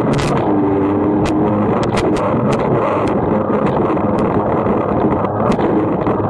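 Yamaha GP1200 WaveRunner's two-stroke three-cylinder engine running at speed, over a steady wash of water and spray noise. Sharp clicks come at irregular moments.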